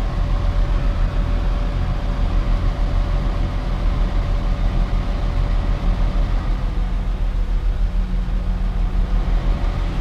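Honda Accord HVAC blower fan running steadily, air rushing through the dash vents over a low hum, with a faint steady tone that sags slightly past the middle. It runs freely, with the dirt-clogged cabin air filter no longer choking it, and sounds better.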